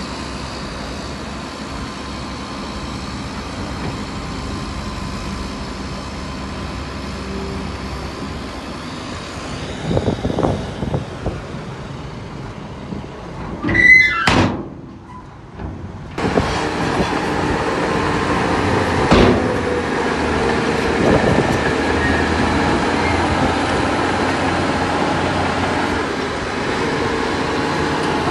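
Diesel engines of a small dump truck and bulldozer running steadily on a fill site, with a few knocks about ten seconds in and a loud short metallic squeal about fourteen seconds in. After a brief dip the engine sound comes back louder and stays steady.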